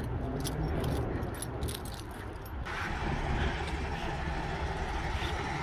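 Street noise: a steady low rumble of traffic and idling vehicles, with keys jingling lightly through the first couple of seconds. About two and a half seconds in, the sound changes abruptly to a fuller, steadier street hum.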